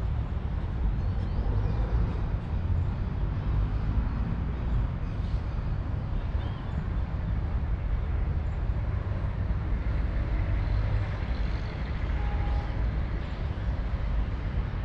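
Outdoor ambience: a steady, fluctuating low rumble with a faint hiss above it.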